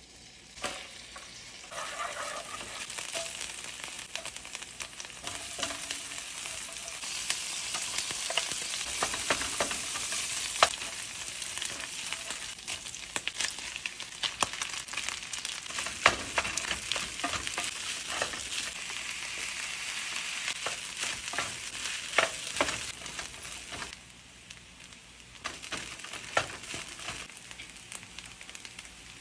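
Sardines and rice frying in a skillet: a steady sizzling hiss broken by sharp clicks and taps of a utensil stirring against the pan. The sizzle drops away for a moment about 24 seconds in, then comes back quieter.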